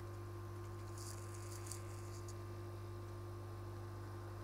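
Steady low electrical hum of microsoldering bench equipment, with a faint scratchy rustle about a second in.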